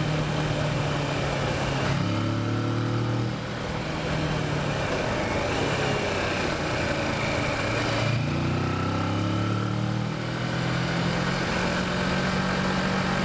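Kawasaki Versys motorcycle engine running under way, with wind rushing past. The engine note changes pitch twice, about two seconds in and again about eight seconds in, then settles back to a steady pitch.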